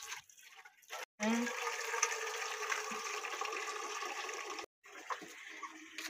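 Water running from a tank tap: a steady splashing rush that starts about a second in, lasts about three and a half seconds and then stops suddenly.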